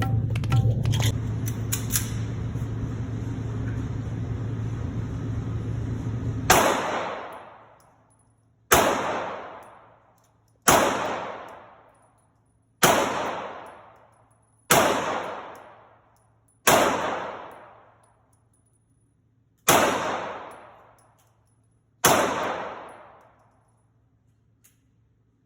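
Eight single gunshots fired slowly, about two seconds apart, each followed by a long echoing decay, after about six seconds of steady background noise.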